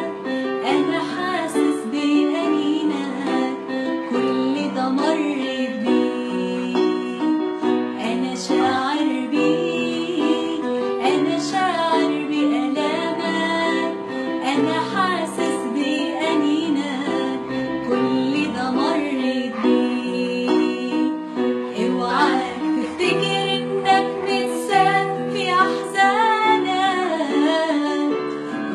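Arabic Christian hymn (tarnima) sung by a solo voice in a gliding, ornamented melody over steady instrumental accompaniment.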